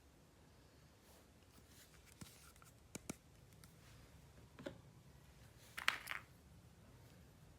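A few small, sharp clicks and taps from plastic toy pieces being handled, scattered over several seconds, with the loudest short cluster about six seconds in.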